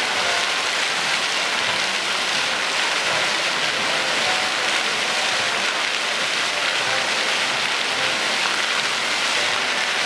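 Many vertical water jets of a lit fountain falling back into the pool, a steady splashing hiss.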